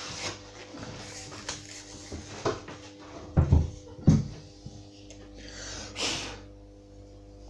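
Handling knocks and thumps of tools on a chipboard kitchen worktop after a router trim, with two heavy low thumps about three and a half and four seconds in, then a brief swishing rub near six seconds.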